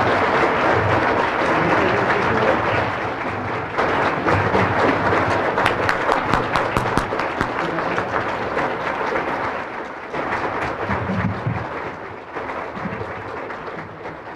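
Audience applauding, dense clapping that slowly thins out and fades toward the end.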